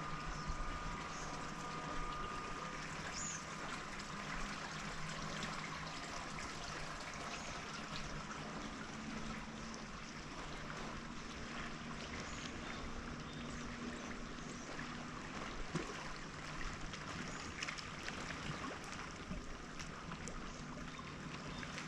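Small waves washing steadily on a sandy beach shore.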